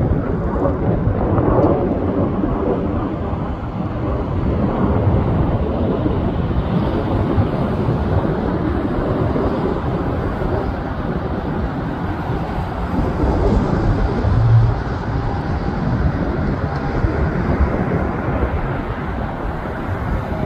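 Wind buffeting the microphone over the low, steady rumble of a jet aircraft.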